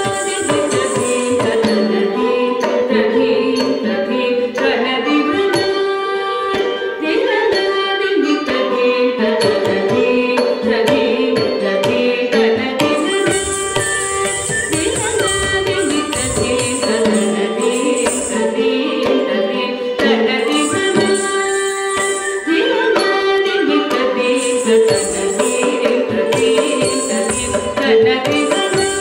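Carnatic thillana in raga Nilakanthi, adi tala: a melody over a steady drone, with drum strokes keeping a quick rhythm.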